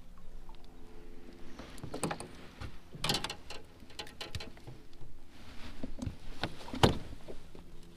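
Scattered knocks and clunks aboard a small fishing boat, over a faint steady hum; the loudest knock comes near the end.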